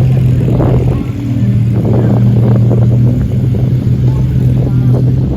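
Ferrari supercar engine running at low revs: a loud, steady, deep drone that dips briefly about a second in and then picks up again.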